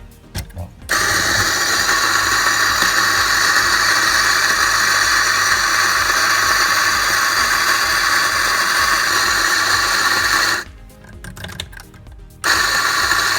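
Electric coffee grinder running steadily for about ten seconds, grinding a 21-gram dose of espresso beans, then a short second burst near the end.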